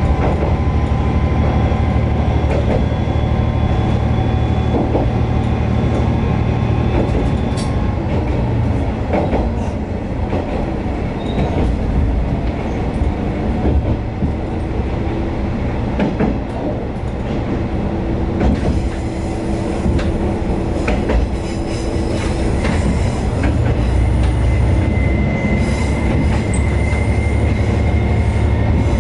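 Diesel railcar running along the line, heard from the driver's cab: a steady low engine drone with the wheels clicking over rail joints, and now and then a thin squeal of the wheels.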